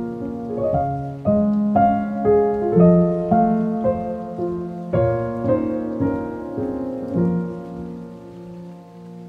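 Solo piano music: a slow classical-style piece, its notes struck one after another and left to ring, getting quieter near the end. A soft sound of rain runs underneath.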